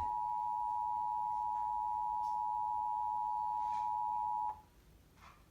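Emergency Alert System attention signal: the steady two-tone alarm, 853 Hz and 960 Hz sounding together, marking the start of the monthly EAS test. It cuts off suddenly about four and a half seconds in.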